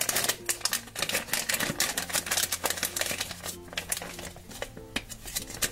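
Foil blind bag crinkling and crackling as fingers tear it open and handle it, in quick irregular clicks. Soft background music with steady tones underneath.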